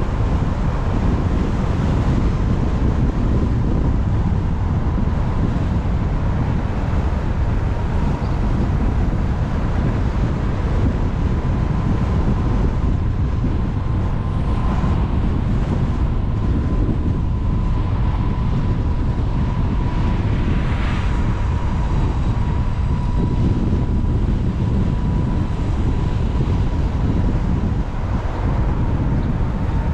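Wind buffeting the microphone as a CSC City Slicker 3.2 kW electric motorbike rides at a steady speed on the open road, with a thin, steady high whine from the electric drive underneath.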